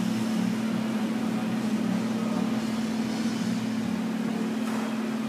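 Steady low machine hum with a faint noisy background, unchanging throughout.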